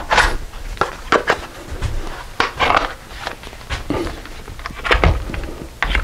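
Irregular clicks, knocks and rustling scrapes of tools and small objects being handled and set down, in no steady rhythm.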